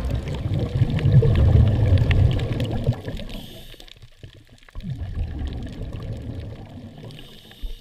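Muffled underwater water sound, gurgling and bubbling. It is loudest for the first three seconds, fades, then swells again more softly about five seconds in and dies away.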